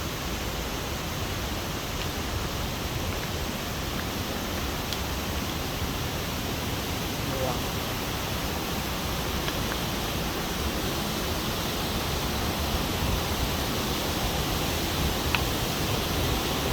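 Waterfall in a rocky gorge, a steady, even rush of falling water.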